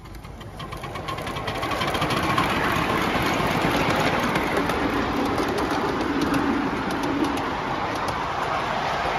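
A 5-inch gauge live-steam locomotive running, a steady rushing hiss of steam and running noise that builds up over the first two seconds and then holds.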